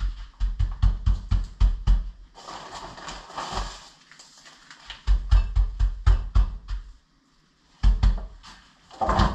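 A gloved hand patting and rubbing a brown-sugar rub into a raw pork butt on a plastic cutting board. It makes bursts of quick, dull thumps, about five a second, with a stretch of scraping, rubbing noise between them.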